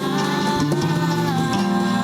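Acoustic song performance: a voice holding long wordless notes that slide slowly in pitch, over guitar accompaniment.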